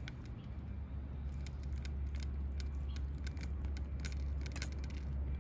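Cats crunching dry food: scattered small, sharp clicks over a steady low rumble.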